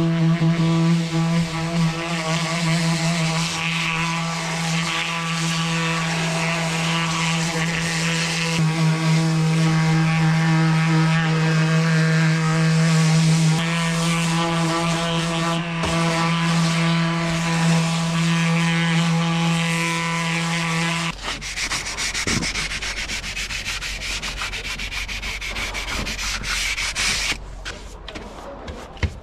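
Electric random orbital sander running steadily as it sands moss and grime off a utility box, its motor hum held level under the abrasive rubbing. It switches off about two-thirds of the way through. Then come the scratchy strokes of a hand brush sweeping the sanding dust off the box.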